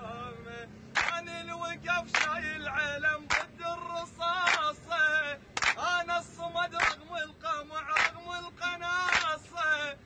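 A group of young men singing together in unison, clapping their hands in time, with one sharp collective clap about every 1.2 seconds.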